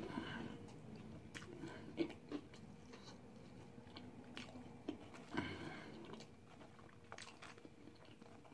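Faint, closed-mouth chewing of a bite of Jamaican beef patty, with a few short mouth clicks.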